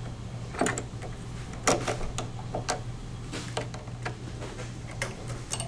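Scattered light metallic clicks and ticks at an uneven pace from a hex driver turning 3 mm Allen screws into the blind nuts of a plywood firewall, fastening a motor mount, over a low steady hum.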